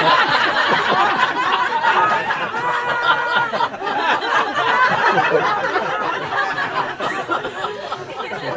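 A roomful of people laughing at a joke's punchline, many voices at once, easing off slowly toward the end.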